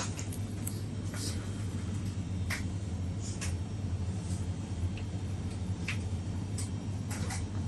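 Steady low hum of a shop's background, with scattered light clicks and taps.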